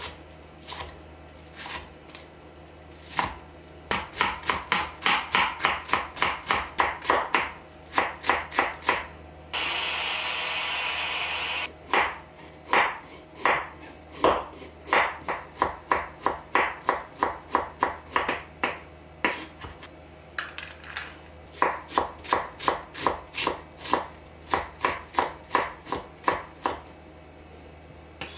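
Chef's knife chopping on a wooden cutting board, slicing carrot and mincing onion in quick runs of strokes, about four a second. A steady hiss lasts about two seconds about a third of the way in.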